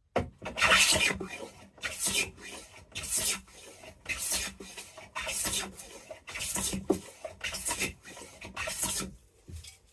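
Stanley 9 1/4 block plane with a freshly sharpened blade, planing wood in eight strokes about a second apart, each a short scrape of the blade cutting a shaving.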